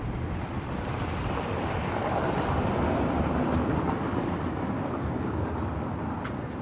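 A vehicle passing by: a rush of noise that swells to its loudest about three seconds in and then fades away.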